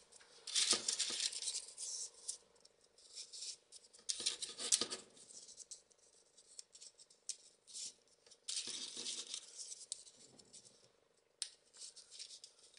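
Folded paper modules of 3D origami rustling and crackling in short, irregular bursts as they are handled and pushed into place on a row of the growing model.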